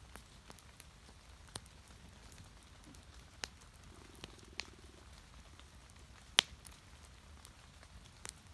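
Fire-and-rain nature ambience: scattered sharp pops and drips, one much louder about six seconds in, over a low steady rumble, with a brief low buzz about four seconds in.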